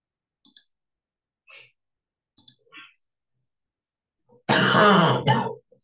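A few faint clicks, then, about four and a half seconds in, a loud breathy burst of exhaled breath from the lecturer close to the microphone, lasting about a second, with a short second puff right after it.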